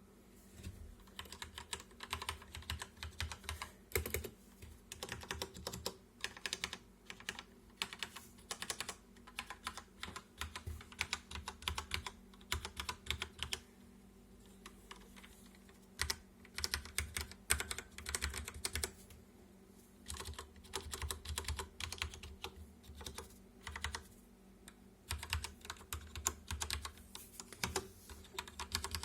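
Typing on a Corsair K63 mechanical keyboard with Cherry MX Red switches: fast runs of key clacks in bursts, with brief pauses between them, over a faint steady hum.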